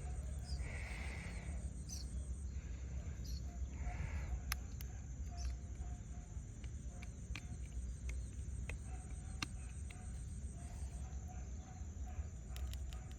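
Outdoor ambience: a steady low rumble with scattered short animal calls and chirps, two brief rustling noises in the first few seconds, and a constant thin high-pitched tone.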